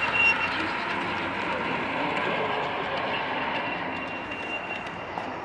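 Model train's cars rolling past on the track: a steady running rumble of wheels on rail that slowly gets quieter as the caboose goes by.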